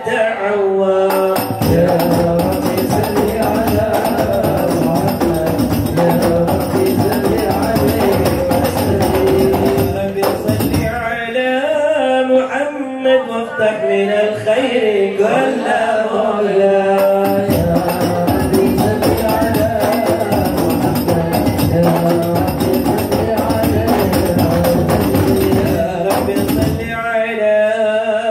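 Hadroh ensemble performing sholawat: a group of male voices sings an Arabic devotional song over fast, dense beating on rebana frame drums. The drums come in after about a second, drop out for about six seconds in the middle, leaving the voices exposed, and come back until just before the end.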